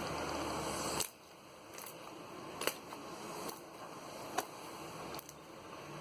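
Homemade grey slime being handled: a second of steady hiss, then a quieter stretch with a few small sharp pops about a second apart.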